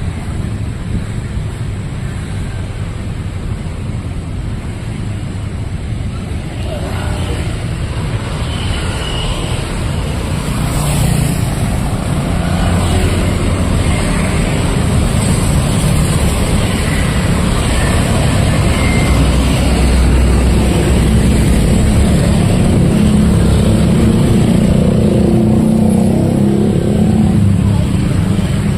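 Street traffic: a steady wash of passing motor vehicles, growing louder around the middle and staying loud to the end, with faint voices mixed in.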